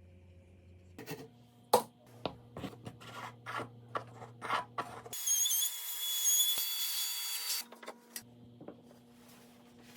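A series of uneven rubbing and scraping strokes on wood, about two a second. About five seconds in they give way to a couple of seconds of high-pitched whining hiss, followed by a few faint strokes near the end.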